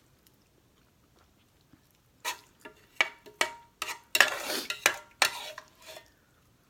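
Serving utensil scooping the last of the noodles from a pot into a bowl: a run of sharp clinks and scrapes against the dishes, with a longer scrape in the middle, starting about two seconds in.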